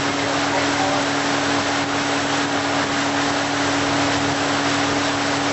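Tow boat's engine running at steady towing speed, a constant drone, under a steady rush of water and wind noise, heard from aboard the boat.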